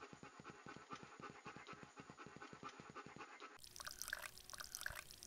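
Faint dog-panting sound effect, quick and rhythmic at about six pants a second. About three and a half seconds in it gives way to a short trickle of liquid as the cartoon dog urinates.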